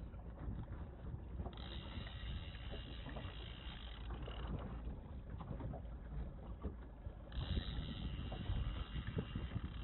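Small fishing boat under way while trolling: its outboard motor runs steadily under a wash of wind and water noise. A higher hiss comes in about a second and a half in, fades after a few seconds and returns near the end.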